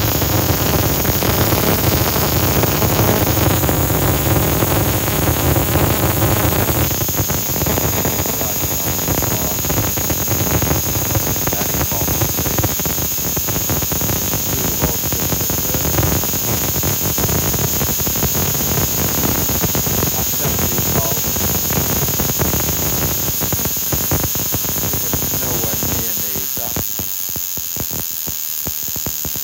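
Electronic buzz-coil ignition unit firing a high-tension spark across an open-gapped spark plug: a continuous rapid crackling buzz of sparks, whose pulse rate follows the supply voltage. The crackle changes texture about a quarter of the way in and thins out and grows quieter a few seconds before the end.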